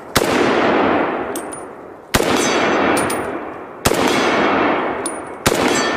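Four rifle shots from a scoped, wood-stocked rifle, roughly one and a half to two seconds apart. Each is a sharp crack followed by a long, fading echo.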